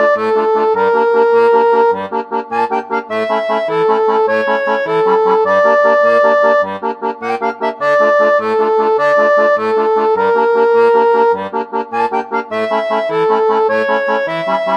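Instrumental outro music: a lively melody over a bouncing bass-note-and-chord accompaniment.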